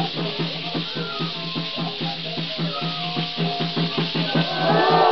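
Parachicos' chinchín rattles shaken over the steady beat of a drum and a reed-flute melody, the traditional Parachico music; a louder burst of voices joins about four seconds in.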